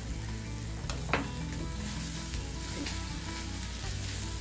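Beef sizzling on a hot round grill pan over a portable gas burner, with a couple of sharp clicks about a second in.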